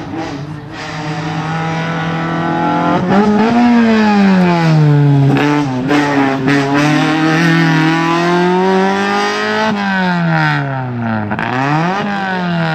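Fiat Cinquecento slalom car's engine revving hard, its pitch climbing and falling again and again as the car brakes and accelerates through a chicane, with a sharp drop about ten seconds in and a quick dip and rise near the end.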